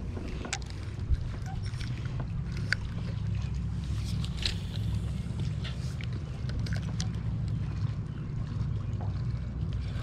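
A steady low hum with wind on the microphone aboard a small fishing boat, and a few scattered light clicks.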